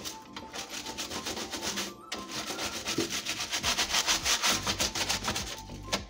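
Small stiff-bristled brush scrubbing rapidly back and forth over a wet refrigerator glass shelf and its plastic frame, in quick repeated strokes with two short pauses.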